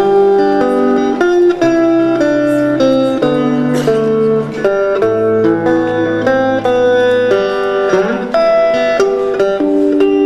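Instrumental passage of a live rock song with no singing: an electric guitar plays a melody of held notes over a low bass line.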